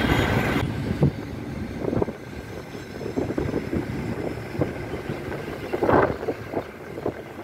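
Road and traffic noise from a moving taxi: a steady low rumble with wind on the microphone and a few short knocks.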